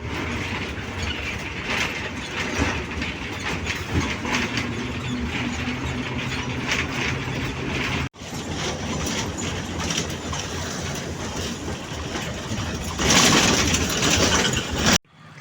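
Moving bus heard from inside: a steady engine hum under constant rattling and clattering of the body, with a louder rush of noise near the end.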